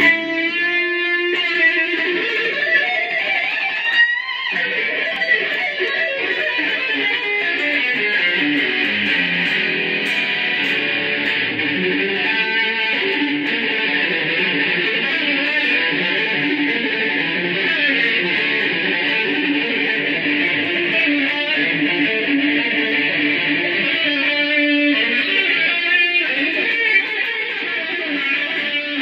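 Unaccompanied electric guitar, a heavily worn Stratocaster-style, played through an amplifier: a continuous run of picked notes and chords, with a brief break about four seconds in.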